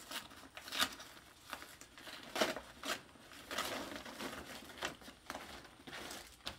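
Stiff kraft-paper mailer envelope rustling and crinkling in the hands as it is handled and reached into, with irregular crackles.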